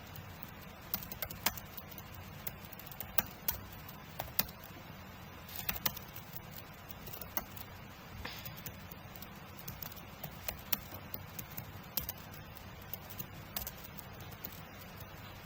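Typing on a computer keyboard: irregular runs of key clicks, several a second with short pauses, over a steady low hum.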